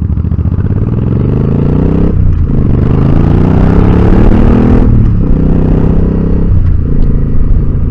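Motorcycle engine accelerating through the gears, rising in pitch and dropping back at each upshift: about two seconds in, again about five seconds in, and once more near the end.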